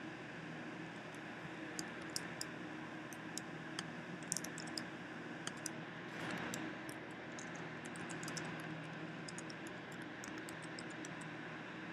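Computer keyboard being typed on in scattered, irregular clicks, faint over a steady low hum.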